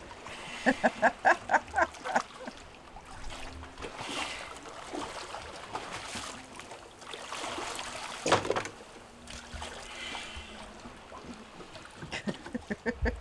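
Water splashing and sloshing as a snorkeler swims up to and grabs the stern steps of a boat, with a sharper splash past the middle. About a second in, a person laughs in a quick run of short bursts.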